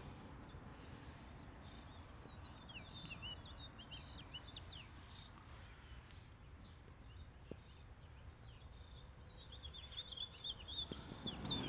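Faint birdsong: quick high chirps in two spells, a few seconds in and again near the end, over a low outdoor background hum.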